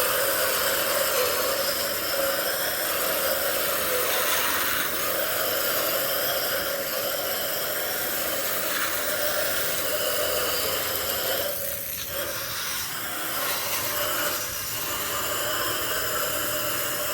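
Garden hose spray nozzle hissing steadily as water rinses the outdoor coil of a Lennox heat pump during cleaning; the spray shifts briefly about twelve seconds in.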